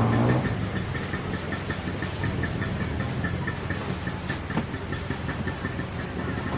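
An engine or motor running steadily with a low hum and a fast, even ticking, plus a short high beep about every two seconds.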